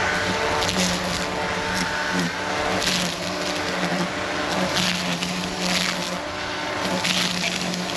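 Echo eForce 56-volt battery-powered tool's electric motor running with a steady hum, broken by repeated bursts of crunching, splintering noise as it cuts through material.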